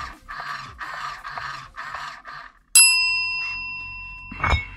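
A single bright bell-like ding, sharp at the start and ringing out for about a second and a half. A short knock follows near the end.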